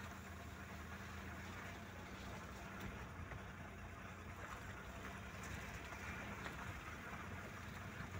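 Maruti 800 small car driving slowly, heard from inside: a steady low engine hum under a constant hiss of tyres and wet surroundings.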